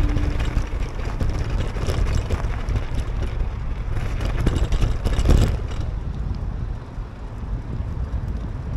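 Wind buffeting the microphone, a steady low rumble, with a stretch of crackling about four to five seconds in.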